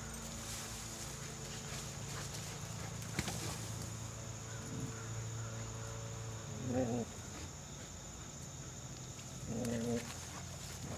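Dogs playing and wrestling, with two short, pitched dog vocalisations about three seconds apart, over a steady high insect drone.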